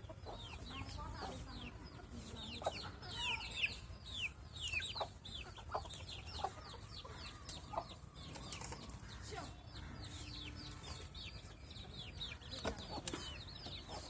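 Many small birds chirping together: a dense run of short, high peeps that fall in pitch, overlapping and repeating, with a few lower calls mixed in.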